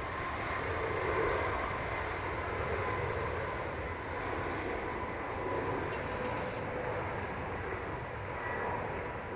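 Steady jet engine noise from a Boeing 787-8 airliner's Rolls-Royce Trent 1000 engines on landing approach: an even rush of noise with faint steady whine tones.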